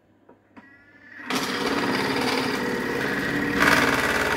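A few light clicks, then a Thermomix TM6 motor starts about a second in, spinning its slicing disc, with a steady whirr and the grating of beetroot being cut into thin slices. It grows louder for a moment near the end.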